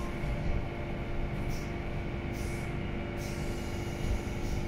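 Interior of a Madrid Metro 5000-series car halting at a station: a steady hum and low rumble from the car, with several short hisses.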